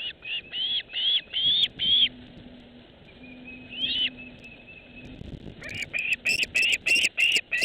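A bird calling in a series of short, arched chirps: a quick run of about six at the start, a single one near the middle, then a faster, louder run from a little before six seconds on.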